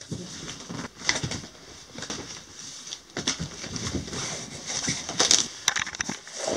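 Cardboard box being opened by hand: irregular scrapes, rustles and knocks of cardboard flaps and packing.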